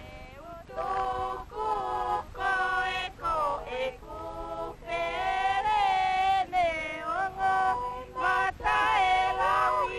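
Several women's voices singing a song together in harmony, in phrases with short breaks between them, starting about a second in.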